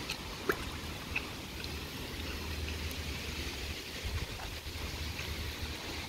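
Water trickling steadily, with a few faint clicks in the first second or so.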